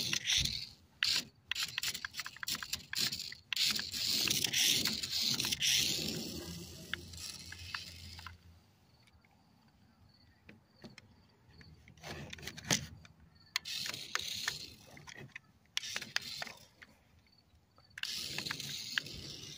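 Adventure Force RC stunt car's small electric motors and gears whirring in stops and starts as it drives over a trampoline mat, with scattered clicks and knocks. One long run of about eight seconds is followed by a quieter stretch, then shorter bursts and another run near the end.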